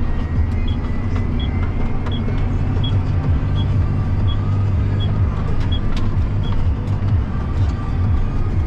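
John Deere 7250R tractor driving at road speed, heard inside the cab: a steady low engine drone with road noise. A short high tick repeats about every three quarters of a second, nine times, and stops about two-thirds of the way through.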